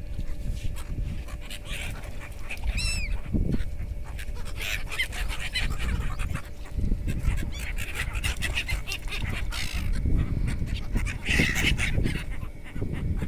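Waterbirds calling repeatedly with goose-like honks, the calls coming in clusters with one falling call about three seconds in and a busier bout near the end, over a steady low rumble.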